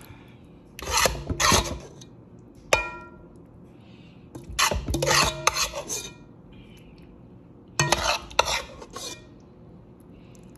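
A spoon scraping and clinking against a baking dish while spooning creamy macaroni and cheese into it. There are three bursts of scraping and one sharp, ringing clink between the first two.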